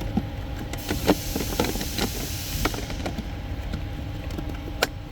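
Scattered light clicks and knocks of plastic parts being handled and pushed into place while a cabin air filter is fitted into its housing. They come over a steady low hum, with a hiss between about one and three seconds in.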